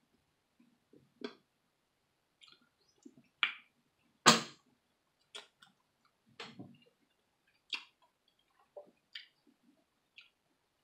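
Close-up eating sounds of a seafood boil: scattered clicks and cracks of clam shells and crawfish shells being pulled apart by hand, with chewing in between. The loudest is a sharp crack a little over four seconds in.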